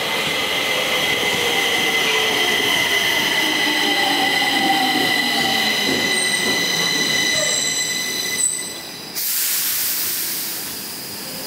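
Stockholm metro train arriving and braking along the platform: wheels squealing with several steady high tones, over a whine that falls in pitch as it slows. About nine seconds in, the squeal gives way to a loud hiss.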